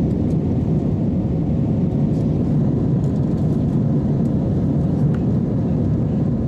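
Airbus A320 jet engine and airflow noise heard inside the passenger cabin during the climb after takeoff: a loud, steady, low drone with a faint steady hum.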